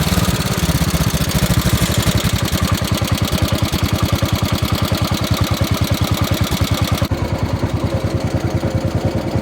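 Freshly rebuilt Kohler K321 single-cylinder engine of a 1969 Gravely 432 running at idle, with an even train of exhaust beats. The high hiss drops away about seven seconds in. It has a slight putt to it, which the owner puts down to ignition points that need cleaning.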